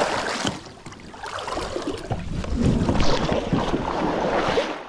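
Shallow creek water rushing and splashing around people wading, with scattered knocks and scrapes of a kayak being handled through the water.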